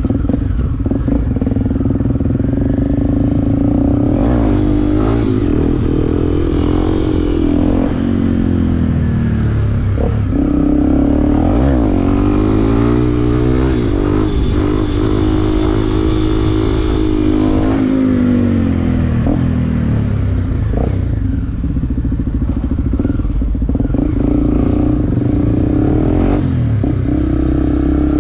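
Motorcycle engine running under way, its pitch rising as it revs up through the gears and dropping back at each shift, several times over, with wind noise.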